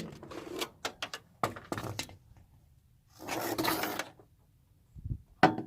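Handling noises under a car's hood: a run of clicks and knocks, a rustle lasting about a second, then a thump and a sharp click near the end.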